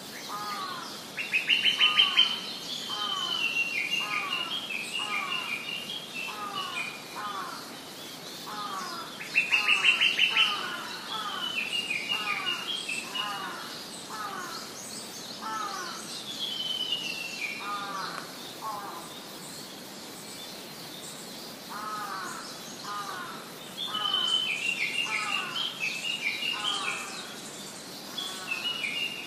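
Female lesser cuckoo giving its rapid bubbling 'pi-pi-pi-pi' trill, twice: about a second in and again about nine seconds in, the loudest sounds here. Other birds call throughout: a lower downslurred note repeated steadily and bursts of higher chirps.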